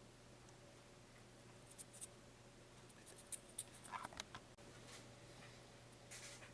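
Near silence with a low steady hum, broken by a few faint light clicks and scratches of small handling, most of them a little after the middle.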